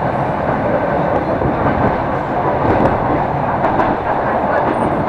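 Electric suburban train (elektrichka) in motion, heard from inside the passenger car: a steady running rumble of wheels on rails.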